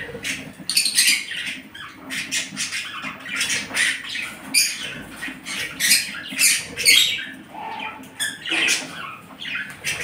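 A brood of nestling birds giving begging calls: many short, high-pitched cries in quick succession.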